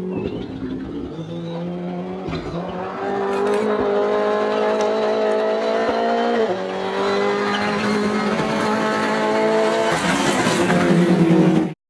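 Rally car engine revving hard along a gravel stage, its pitch climbing and then dropping sharply at gear changes, about two-thirds of the way through and again near the end, growing louder as it approaches, over the hiss of tyres on loose gravel. The sound cuts off suddenly just before the end.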